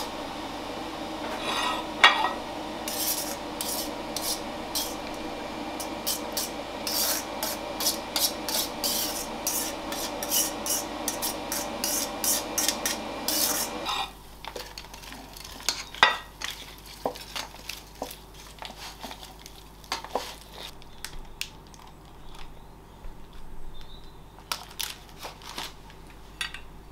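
Metal serving utensils scraping and clinking against pans and a plate as a meal is dished up. There is a dense run of clinks over a steady hum for about the first half; the hum then cuts off suddenly and the clinks become sparser.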